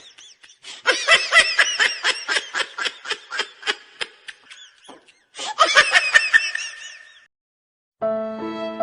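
Laughter sound effect: two bouts of rapid, high-pitched laughing, the second one shorter. Music comes in near the end.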